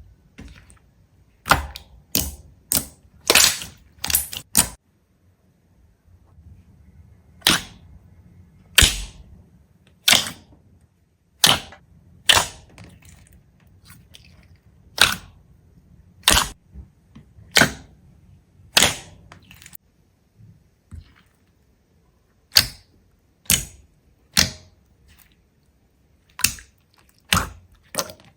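A series of sharp clicks or snaps at an uneven pace, some in quick clusters of two or three, over a faint low hum.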